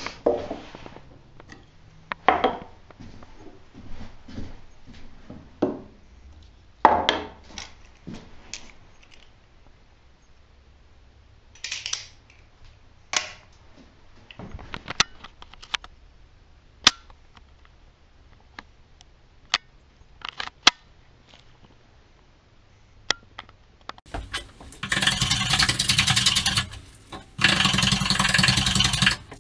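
Scattered knocks and clicks of hand tools and wood being handled on a workbench. Near the end a power drill runs twice, loud and steady, with a short pause between, boring into a pine board.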